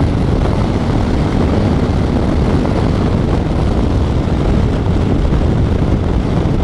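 Harley-Davidson Low Rider S's Milwaukee-Eight 114 V-twin running steadily at highway speed, mixed with heavy wind rush on a helmet-mounted camera microphone.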